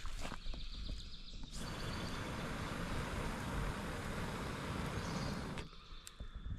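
Wind rushing through the surrounding trees and buffeting the microphone, with a steady low rumble. A stronger gust swells in about a second and a half in and falls away about a second before the end.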